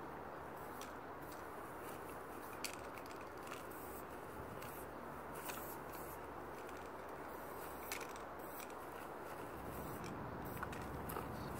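Aerosol spray paint can hissing in short, irregular bursts against a steady low background rumble.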